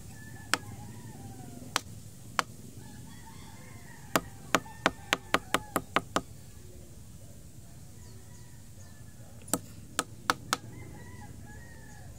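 Glass bottle knocked down hard onto a concrete floor to crush engorged ticks, each blow a sharp knock. Three single knocks come first, then a quick run of about eight at roughly four a second, then four more near the end.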